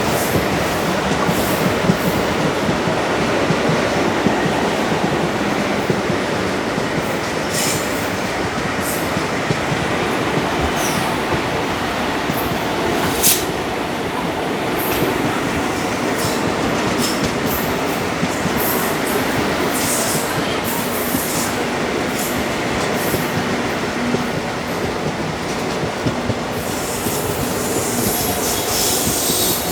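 ICF passenger coach rolling along the rails at speed, heard from inside the moving train. A steady rumble of wheels on track, with scattered short sharp clicks over it.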